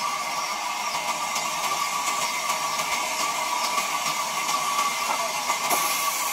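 Large sawmill band saw running steadily with a constant whine over a hiss, with a few faint knocks of wood being handled.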